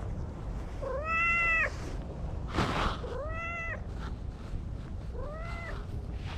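Domestic cat meowing three times, each meow rising then held, the first the loudest. A short noisy whoosh falls between the first two meows.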